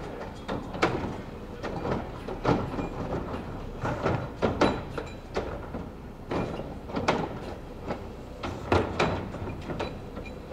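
Wittke front-loader on a Mack LE garbage truck dumping a container over the cab: irregular metal clanks and knocks, about one or two a second, as the raised container is shaken and banged to empty it and the arms come down, over a steady low engine rumble.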